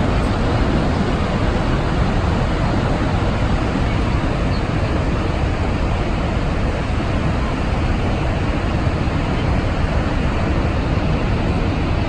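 Niagara Falls' falling water rushing in a steady, unbroken wash of noise, deepest in the low end, with no change in level.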